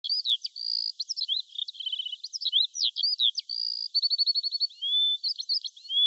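A songbird singing a fast, varied song of high chirps, short whistles and rapid trills.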